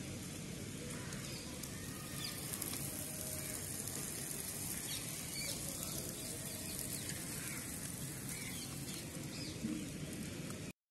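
Steady outdoor hiss with faint, short bird chirps now and then.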